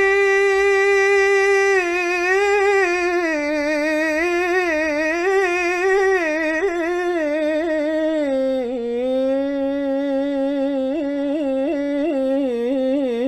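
A single voice singing an Arabic naat, drawing one syllable out into a long melismatic line with no words. The note is held steady for about two seconds, then winds through quick ornamental turns, stepping down in pitch about two-thirds of the way through and again near the end.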